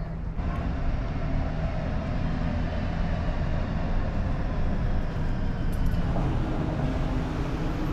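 Calgary CTrain light-rail train running through Sunnyside station: a steady rumble with a faint whine over it, a little louder after about half a second.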